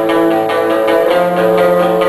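Live music for a belly dance: a plucked string instrument plays a melody over a steady rhythm, in the style of a Turkish karsilama tune.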